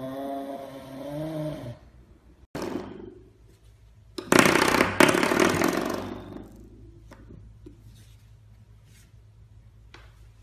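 A serval growls in rising-and-falling yowls until about 1.7 s in. After a pause, a puppy's spring doorstop gives a loud buzzing twang, twice in quick succession, about four seconds in.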